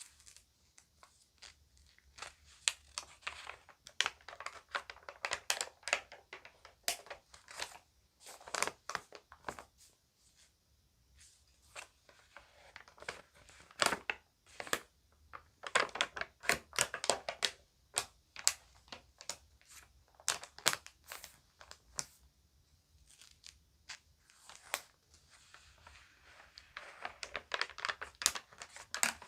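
Magazine pages being handled, turned and crinkled, in irregular bursts of crackling with short pauses between.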